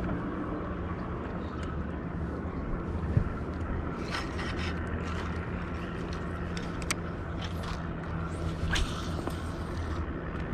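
Steady low hum of a boat motor running throughout, with a few light clicks and taps.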